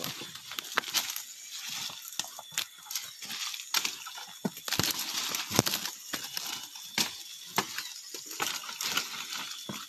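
Footsteps and brushing through dry undergrowth: leaf litter and dry fronds crackling and twigs snapping in irregular clicks.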